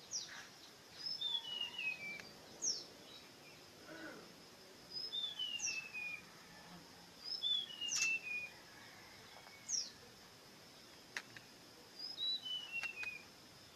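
A songbird singing. The phrase is a short high note followed by a run of notes stepping down in pitch, repeated about four times, with quick sharp downward-sweeping calls between the phrases. A faint steady high tone lies underneath.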